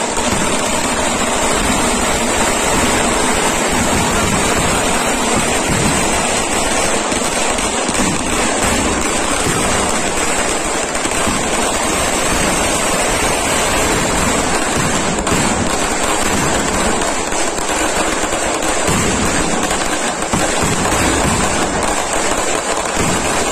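Kerala temple vedikettu fireworks barrage: aerial shells and crackers bursting in dense, unbroken succession, so that the bangs and crackling run together into one steady, loud din.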